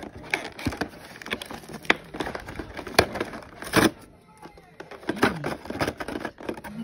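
Fingers pressing and tearing at a cardboard advent calendar's perforated door: a run of sharp clicks, taps and cardboard crackles, the loudest a little before four seconds in.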